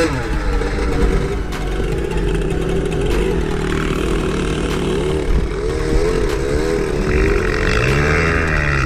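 Dirt bike engine revving under load, its pitch rising and falling as the throttle is worked, with a couple of clear rev-up-and-back sweeps near the end.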